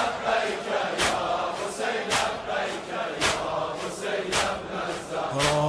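A large crowd of men chanting together, punctuated by a loud sharp beat about once a second. Near the end a single held sung note comes in.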